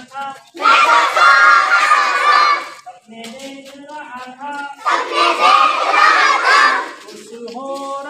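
A group of children shouting together, twice, each time for about two seconds, with one quieter voice between the shouts.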